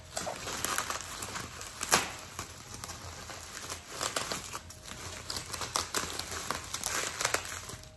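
Bubble wrap crinkling and rustling as it is handled and pulled open around a package, in irregular crackles, with one sharper crack about two seconds in.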